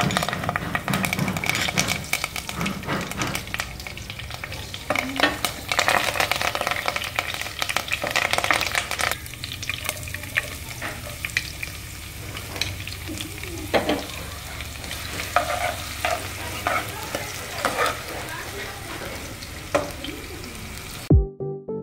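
Curry leaves and pandan leaves, then sliced onions, sizzling and crackling as they fry in hot oil in a pot, with a wooden spatula stirring and scraping. Electronic music with a drum beat cuts in just before the end.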